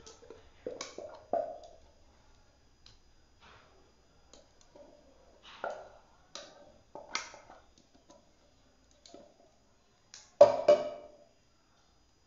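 Silicone spatula knocking and scraping against a plastic-wrap-lined dish while spreading thick brigadeiro mixture: scattered light clicks and knocks with pauses, and a sharper cluster of knocks about ten seconds in.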